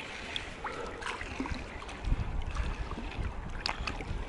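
Wind buffeting the microphone over small waves lapping around a wading angler, with a few faint clicks of handling; the wind rumble grows stronger about halfway through.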